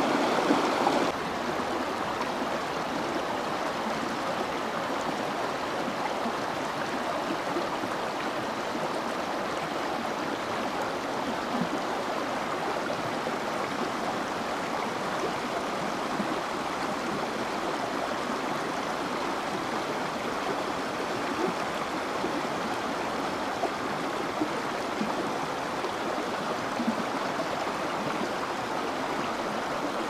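Shallow rocky stream running fast over stones in a steady rush of water. A louder small cascade gives way about a second in to a slightly quieter, even flow.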